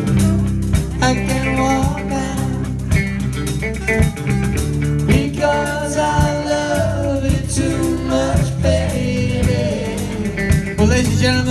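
Live band playing a rock number: drums, bass guitar, electric guitar and saxophone, with singing over the top.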